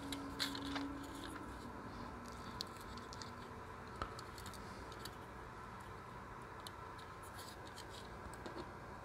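Light clicks and scratches of a plastic model coach chassis being handled and turned in the fingers, with a sharper click about four seconds in.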